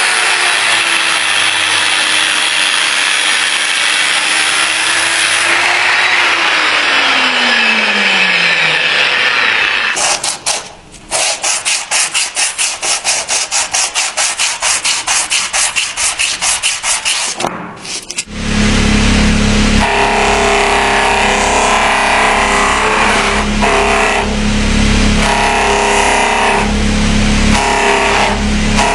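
Abrasive work on a steel knife blade. For the first ten seconds there is continuous grinding noise, with a low tone that falls in pitch near the end of it. Next come about eight seconds of quick back-and-forth sanding strokes, about four a second. From about eighteen seconds on, a powered tool runs steadily with a hum.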